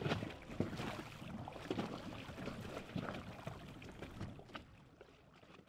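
Water sloshing and lapping, with irregular small splashes, fading out gradually toward the end.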